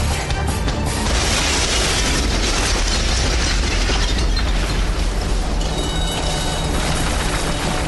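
An explosion blasting out of a building: a boom about a second in, then a long rush of fire and rumble that thins out after about five seconds.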